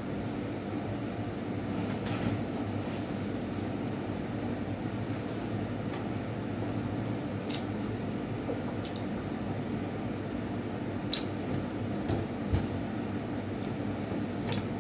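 Wet mouth sounds of a person eating, with squishing and a few sharp clicks here and there, over a steady background hum.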